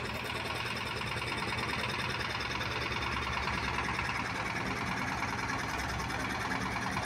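A boat engine running steadily at idle, with a fast, even clatter.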